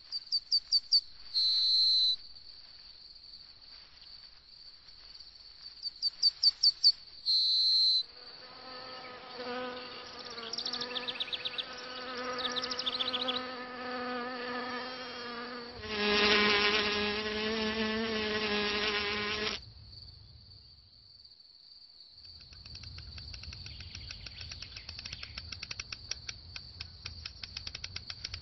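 Insect sounds: a steady high-pitched cricket-like trill throughout, broken by two loud bursts of rapid chirps at the start and about six seconds in. In the middle a flying insect buzzes for several seconds, growing louder and then cutting off suddenly, and near the end a fast pulsing chirr takes over.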